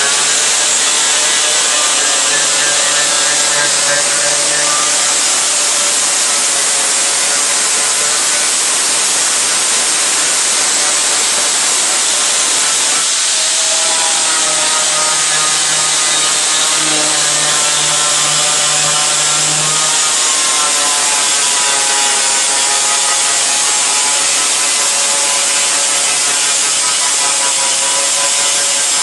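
Power tool working the steel roof panel of a 1985 Chevrolet Caprice body: a loud, steady hiss with a wavering whine that drifts up and down in pitch.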